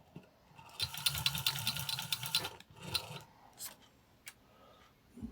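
Wells Brimtoy clockwork tin drummer toy running on its wound spring motor, its arms rattling in a fast run of clicks for about a second and a half. A few separate clicks follow.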